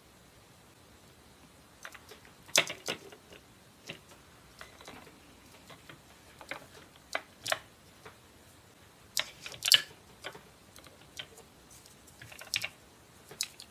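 Hard plastic toy food and a plastic toy plate clicking and knocking as they are handled and set down: scattered light taps with a few louder clacks.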